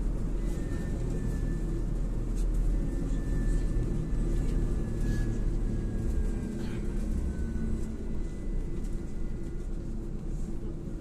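Interior of a LAZ E301D1 trolleybus on the move: a steady low rumble of tyres and running gear, with a faint thin high whine from the electric traction drive that glides slowly in pitch.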